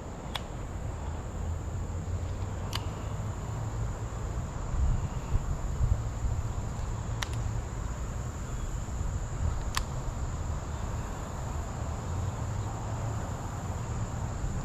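Insects chirring, a steady high-pitched drone like crickets, over a low rumbling noise, with a few sharp clicks scattered through.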